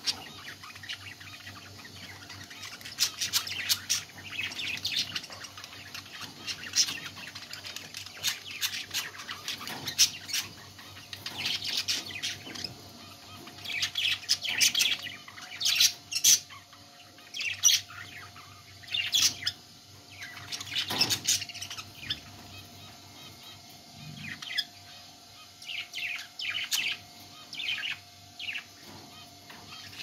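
Budgerigars chirping and warbling in quick, irregular runs of short high calls, over a faint steady hum.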